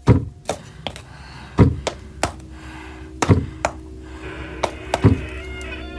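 Slow, heavy footsteps as a drama sound effect: four deep thuds about every one and a half to two seconds, with lighter clicks between them. Under them a low, eerie music drone comes in about halfway and swells toward the end.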